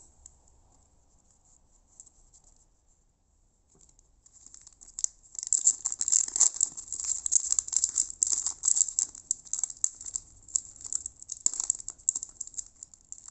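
Trading card pack wrapper crinkling and crackling as it is worked open by hand, starting about four seconds in after a few near-quiet seconds.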